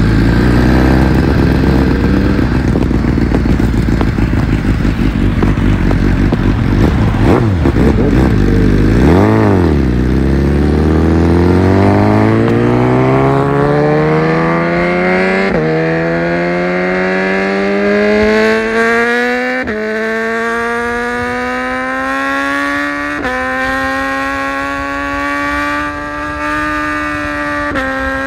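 BMW S1000RR inline-four sportbike engine heard from the rider's seat. It rumbles at low revs at first, then, about ten seconds in, pulls hard through the gears: the revs climb steadily and drop sharply at each of four upshifts.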